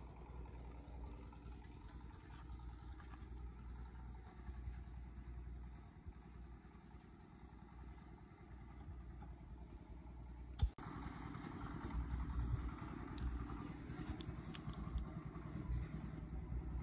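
An engine idling with a steady low hum. There is a single sharp click about ten seconds in, after which the running is somewhat louder.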